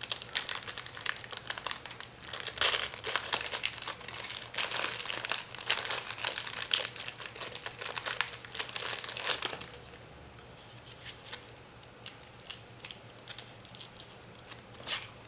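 Packaging crinkling and tearing as a small packet of soldering flux is unwrapped by hand: dense, irregular crackling for about nine seconds, then only a few scattered rustles and clicks.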